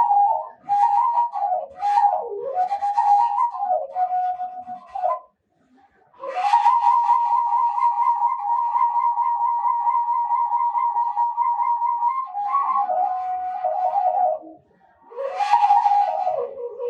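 Ethiopian washint, the end-blown bamboo flute, playing a solo melody with sliding, bending notes and a long wavering held tone in the middle, pausing briefly twice.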